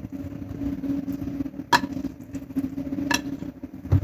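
Kitchenware clinking twice, sharply and about a second and a half apart, over a steady low hum, with a dull thump near the end.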